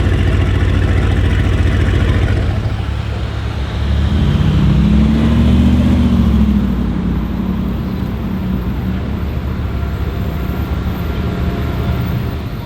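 Mercedes-AMG GT R Pro's twin-turbo 4.0-litre V8 through a straight-pipe exhaust, running at low revs. About four seconds in the engine note gets louder, its pitch rising and then falling once, before settling back to a lower rumble.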